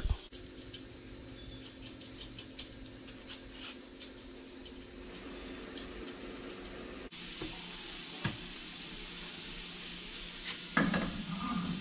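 Steady hiss of shop background noise with a few faint clicks and a single knock as a wire wheel is handled at the front hub. Near the end comes a louder, duller clunk as the wheel is pushed onto the hub, where it will not seat because the brake caliper is in the way.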